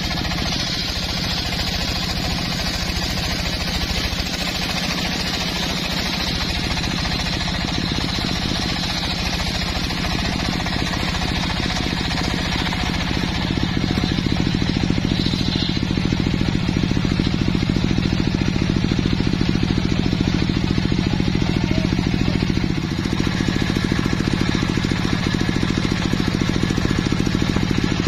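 Homemade circular sawbench running and ripping a log lengthwise: a steady mechanical drone with the noise of the blade cutting through the wood. It gets louder about halfway through.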